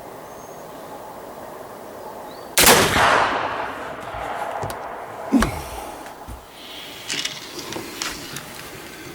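A single shot from a flintlock muzzleloading rifle about two and a half seconds in, a sudden report that fades away over most of a second. A second, shorter sharp knock follows about three seconds later.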